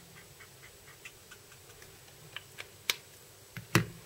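Copic alcohol marker's nib flicked across paper in quick short strokes, each a faint tick about four or five times a second. Near the end come two sharp, much louder clicks as the marker is capped and put down.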